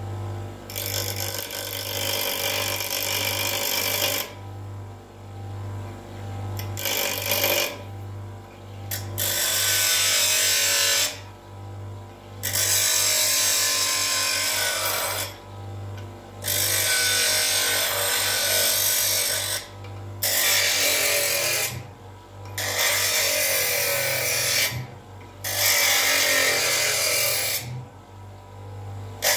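Parkside PDOS 200 C2 double bench grinder's induction motor running with a steady hum while a screwdriver is pressed against the spinning grinding wheel in about ten separate passes. Each pass lasts one to three seconds and makes a loud grinding hiss.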